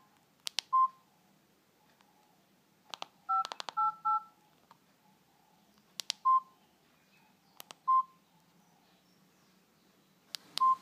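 Keypad mobile phone being operated: each key press gives a click followed by a short beep, and a quick run of two-note beeps comes a few seconds in as the menu is scrolled.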